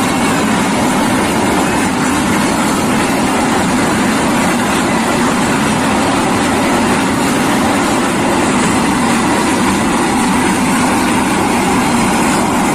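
Freight train running on the rails: a loud, steady noise of wheels and engine that holds even throughout.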